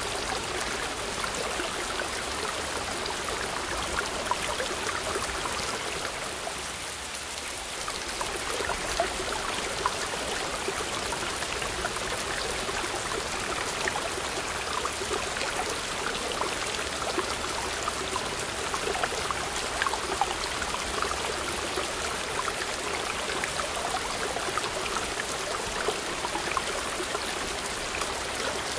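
Mountain stream rushing and splashing over boulders in small cascades: a steady rush of water that eases slightly for a moment about seven seconds in.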